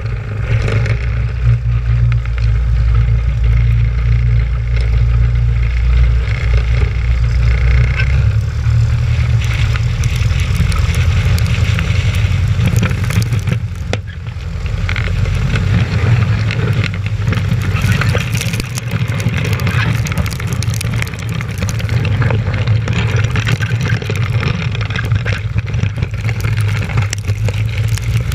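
Piper Pacer light aircraft's piston engine and propeller running steadily at high power for takeoff, with a brief dip in level about halfway through.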